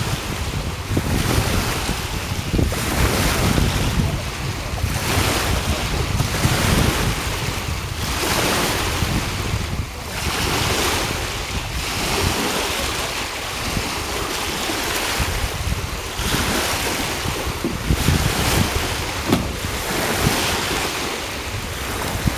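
Wind gusting across the microphone, with small waves lapping in choppy water.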